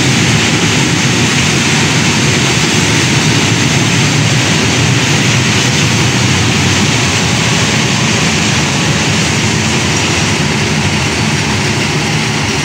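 Freight train of rail tank wagons rolling past close by, a steady loud noise of wheels running on the track that eases slightly toward the end as the wagons move away.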